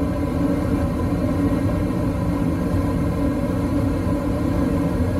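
Gas furnace running just after lighting, its new inducer fan motor and burners making a steady low rumble with no squeal: the replaced inducer motor runs perfectly quiet.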